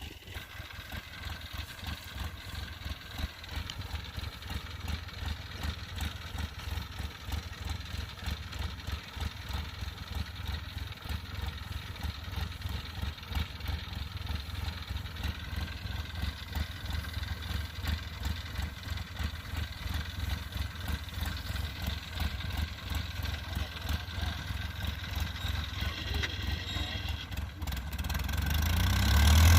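Kubota DC70 combine harvester's diesel engine running steadily with a fast, pulsing low rumble, growing much louder in the last couple of seconds.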